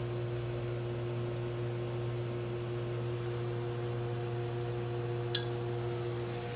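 A steady machine hum, with one sharp click about five seconds in.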